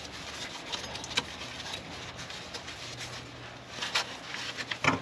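Gloved hands working a rubber sway bar bushing into place on a car's rear sway bar: faint rubbing and handling noises with a few small knocks, the loudest near the end.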